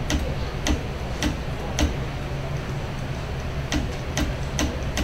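Shimano XTR hydraulic disc brake lever being flicked repeatedly, each flick a sharp click, about two a second with a pause of about two seconds in the middle. This is a bleed step: flicking the lever agitates the last air bubbles in the brake line so they rise into the reservoir.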